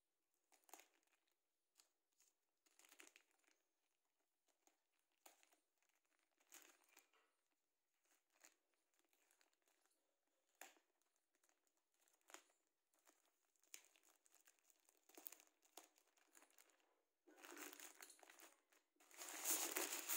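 Thin plastic bag around a speaker crinkling and rustling as hands pull it open and off, in short irregular bursts that grow longer and louder near the end.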